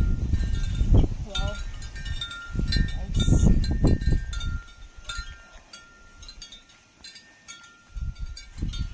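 Wind chimes ringing faintly with several high notes, under a low rumble that fades out about halfway through.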